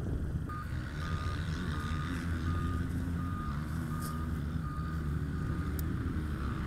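A vehicle's reversing alarm beeping evenly, about every three-quarters of a second, over a running engine.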